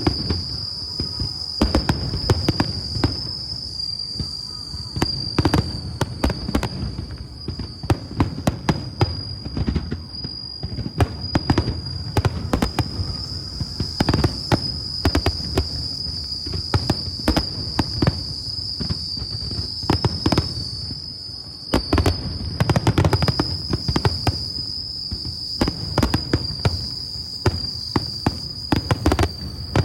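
Fireworks display: a rapid, continuous run of sharp bangs and crackles over a low rumble of bursting shells. A steady high-pitched whine runs underneath.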